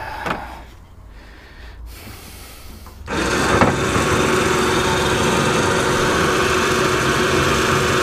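Battery-powered electric winch motor switched on from its handheld remote about three seconds in, then running steadily as it lets out its line. A few faint handling knocks come before it.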